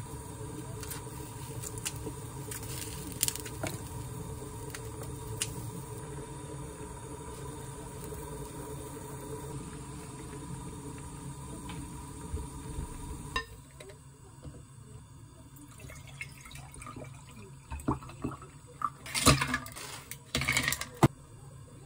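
Spicy beef soup bubbling at a simmer in an earthenware pot, with a steady low hum and light clicks from the wooden spoon. After about 13 seconds the sound cuts to a quieter one, and near the end ice cubes clink and splash into a glass of orange juice, the loudest sounds here.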